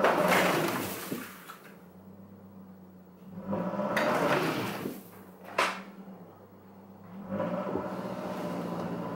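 Subaru SUV's engine running, revved in three surges of a second or two each as the car tries to pull out of deep snow. A single sharp click about five and a half seconds in.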